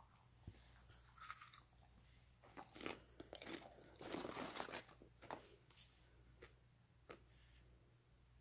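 Dog chewing popcorn: a run of crisp crunches, densest and loudest in the middle, tapering off to a few single crunches near the end.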